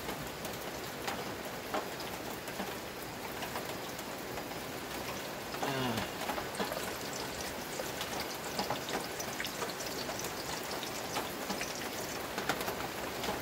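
Heavy rain falling steadily, a dense even hiss with scattered sharp drop taps. A short sound falling in pitch is heard about six seconds in.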